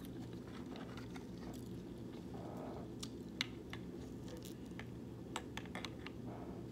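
A person chewing food close to the microphone, with scattered short mouth clicks, most of them in the second half, over a steady low hum.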